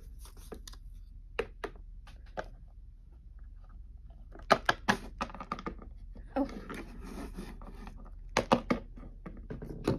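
Small plastic toy figures and playset pieces being handled, clicking and knocking on a wooden tabletop in scattered taps, with louder clusters of knocks about halfway through and near the end.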